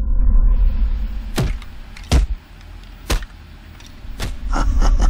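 A deep low rumble with sharp knocks about once a second, then a fast run of clicks near the end.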